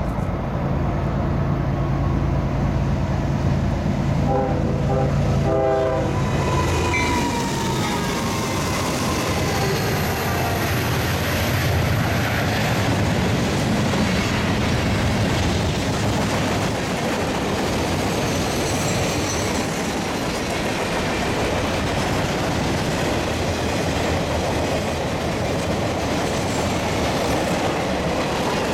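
CSX freight train led by a GE ES44DC diesel locomotive passing close by: the diesel engines hum as it approaches, and its air horn gives short blasts about four to six seconds in, falling in pitch as the locomotive goes by. The freight cars then roll past with steady wheel-on-rail noise and clickety-clack over the rail joints.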